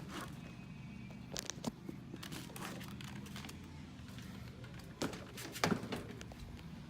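Handling noise while working on a car door with its trim panel off: a few short clicks and crinkles of plastic, the sharpest near the middle and again near the end, over a steady low hum.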